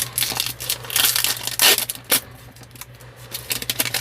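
A trading-card pack's plastic wrapper being torn open and crinkled, loudest in the first two seconds, then quieter with scattered small crackles.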